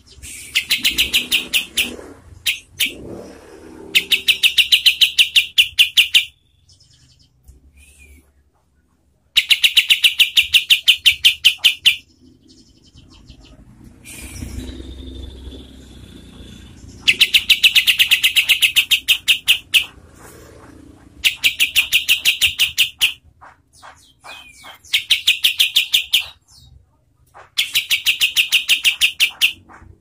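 Caged kapas tembak (olive-winged bulbul) singing its rapid-fire trill, the 'tembakan'. It comes in about seven bursts of quickly repeated notes, each two to three seconds long, with short quieter calls in the gaps.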